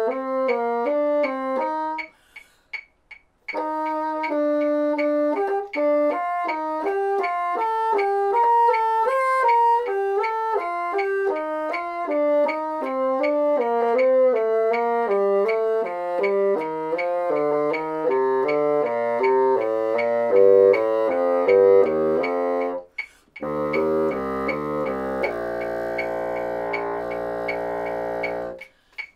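Bassoon playing a quick thirds exercise, note after note, working down through the keys so the pattern sinks lower in pitch. It breaks off for breath about two seconds in and again near the end, and finishes on a long held low note.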